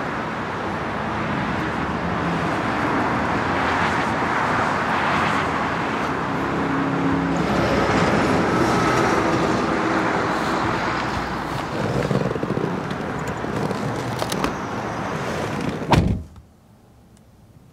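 Steady outdoor traffic noise through the open passenger door of a 2004 Cadillac CTS-V, then the door is pulled shut with a single thud near the end, cutting the outside noise off.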